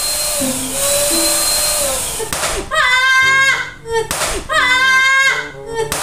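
Electric balloon pump running with a steady high hiss as it inflates a jumbo balloon. About two seconds in, an added music clip starts: a short melodic phrase that repeats roughly every two seconds.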